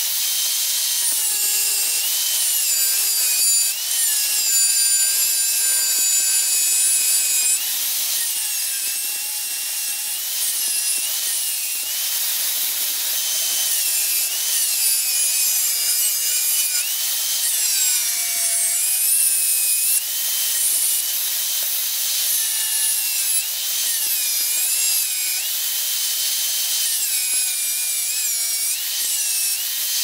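Angle grinder with a thin cutting disc slicing through an aluminium sheet: a continuous high-pitched whine mixed with the hiss of the cut. The pitch dips and recovers again and again as the disc bites into the metal and eases off.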